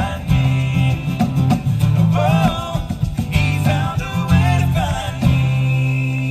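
Live country-gospel vocal group: sung lead and harmony vocals over two strummed acoustic guitars. The voices and guitars settle onto one held chord about five seconds in.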